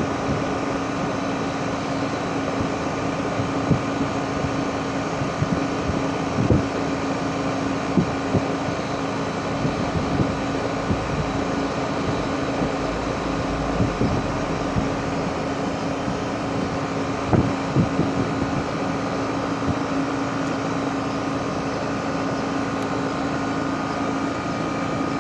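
A 2012 Rheem 4-ton heat pump running steadily in cooling mode: a constant hum from the compressor and condenser fan, with occasional brief thumps.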